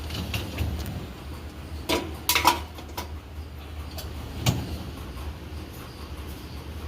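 Dishes and dishwasher racks clinking and knocking a few times: a quick cluster about two seconds in and one more knock near the middle. A low steady hum runs underneath.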